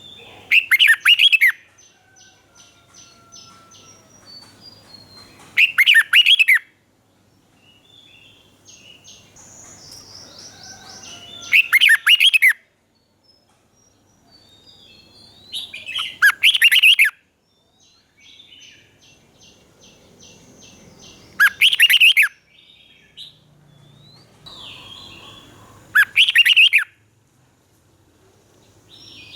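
Red-whiskered bulbul singing: six loud, short song phrases come about every four to five seconds, with fainter chirping and quick repeated notes between them.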